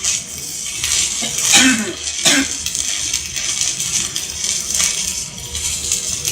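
Electric stick-welding arc burning on a 3.2 mm electrode, a steady crackling hiss with fine irregular pops.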